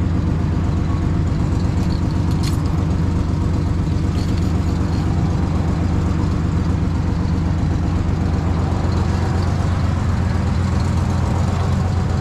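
A steady, loud, low mechanical drone with a fast even pulse, like an engine or motor running at a constant speed.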